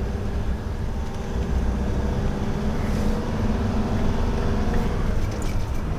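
Steady in-cab drone of a Swift Select 122 motorhome cruising on a country road: its diesel engine and tyre and road noise running evenly.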